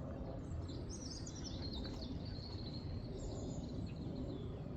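Small birds chirping and twittering over a steady low background rumble of outdoor noise.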